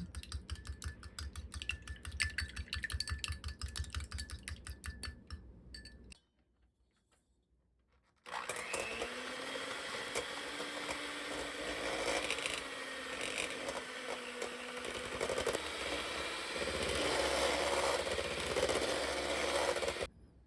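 Rapid, even clicking or tapping for about six seconds. After a short silence, a small electric motor starts and runs steadily with a faint hum until it cuts off near the end.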